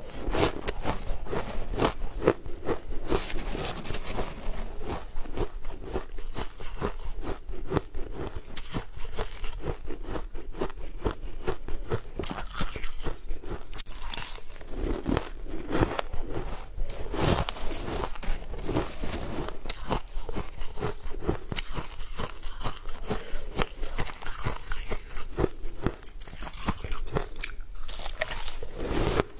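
Close-up crunching and chewing of mouthfuls of purple crushed ice, a dense run of crackly crunches, with a metal spoon scooping into the ice in a plastic tub.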